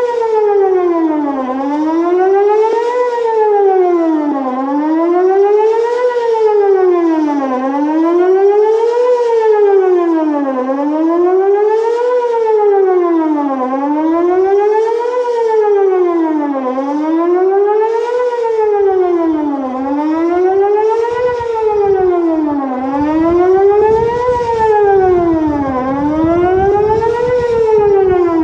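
Whelen WPS 2810 electronic outdoor warning siren sounding a wail, its pitch sweeping up and down evenly about every three seconds. It is weaker and less punchy than it should be, which the owner puts down to blown speakers.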